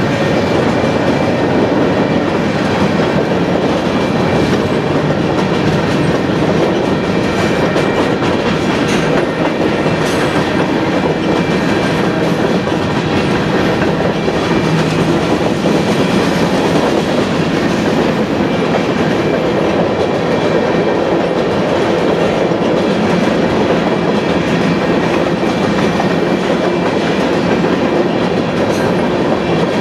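Covered hopper cars of a Union Pacific grain train rolling past, their steel wheels running over the rails in a loud, steady, unbroken clatter.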